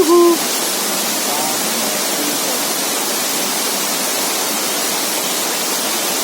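Steady rushing of a waterfall, an even roar of falling water with no change in level. A short voice sounds right at the start, and faint voices are heard about a second in.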